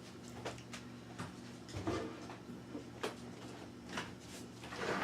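Faint, scattered clicks and light knocks of objects being handled, about half a dozen over a few seconds, over a steady low hum.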